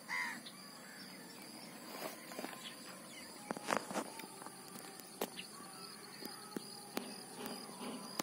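Steady high insect drone, like crickets, with a few scattered light clicks and rustles, the sharpest a little under four seconds in. A short bird chirp sounds at the very start.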